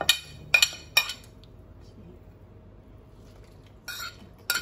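A metal spoon clinking against a ceramic plate as vegetables are scraped off into the pot: three sharp clinks in the first second, then two more near the end.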